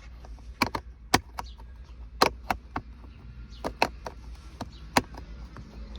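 Sharp, irregular clicks and taps of the plastic and metal parts of a 12-volt accessory socket being handled and pushed together while lining them up for fitting.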